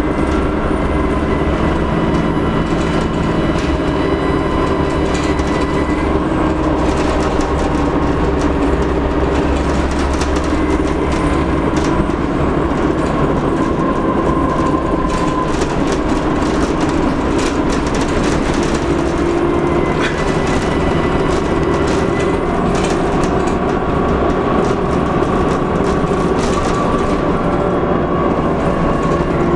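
Dennis Trident double-decker bus's diesel engine running under way, with its turbocharger whistle rising and falling as engine speed changes, over a steady drone and many light rattles.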